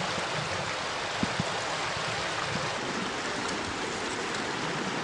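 Southern Bug river water rushing steadily over rocks in a shallow stretch.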